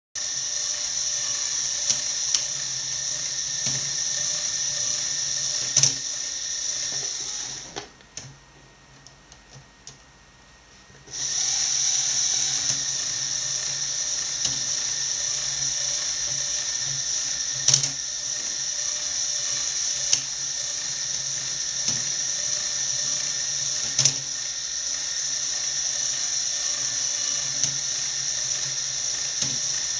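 Motorised Lego Technic loom running: a steady high whine of the Lego motor and plastic gears, with sharp plastic clacks from the weaving mechanism every several seconds. About 8 seconds in it stops for some three seconds, leaving only a few soft clicks, then starts again.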